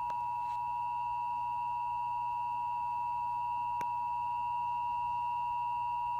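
Emergency Alert System attention signal: two steady sine tones sounded together as one harsh, unbroken alarm tone, marking the start of an emergency alert broadcast, here a required monthly test.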